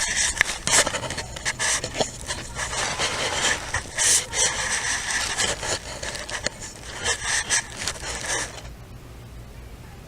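Harsh scraping and rubbing noise broken by sharp knocks, stopping suddenly about eight and a half seconds in, leaving a low steady hum.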